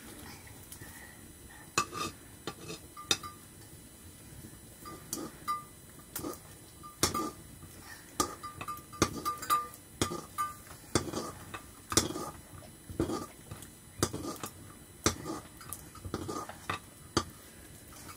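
Wooden stirring stick knocking and scraping against a metal cooking pot in irregular clinks, many with a short metallic ring.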